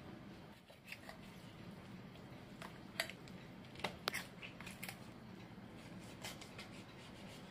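Large kitchen knife carving the thigh off a whole roast chicken: scattered sharp clicks and crackles of the blade cutting through crisp skin and the joint and knocking on the wooden cutting board, loudest a few seconds in.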